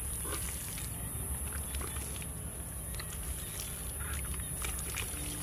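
Hands scooping and squeezing wet mud, making scattered soft squelches and smacks, over a steady low rumble and a thin, steady high whine.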